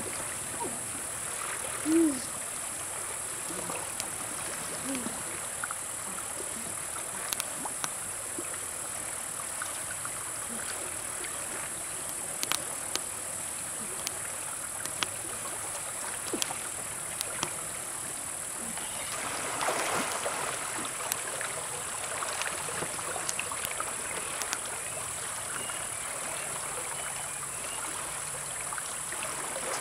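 River water rushing steadily over rocks under a constant high insect drone, with scattered sharp ticks. About two seconds in comes a short pitched call, the loudest sound. About two-thirds of the way through there is a few seconds of louder splashing.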